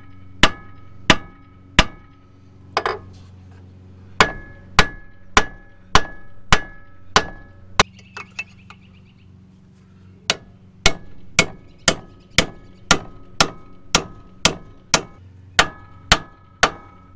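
Hammer blows on a Ford F250 Super Duty front steering knuckle, about two a second, each with a metallic ring, struck to jar the ball joint studs loose so the knuckle drops. The blows stop for a couple of seconds just before the middle, then resume at the same pace.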